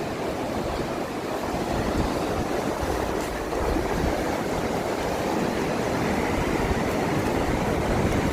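Heavy surf on a beach: a steady rushing roar of breaking waves with a deep rumble underneath.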